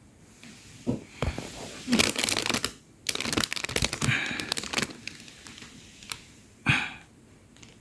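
Rustling and scraping of a packet and scoop as dry soft-food ingredients are scooped out into a mixing bowl, in two stretches, with a short knock near the end.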